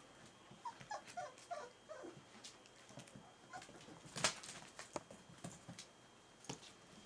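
Smooth-faced Pyrenean Shepherd puppies, about four weeks old, playing: one gives a quick string of short, high, falling whimpers and yelps in the first two seconds. Scattered knocks and scuffs follow, the loudest a sharp knock about four seconds in.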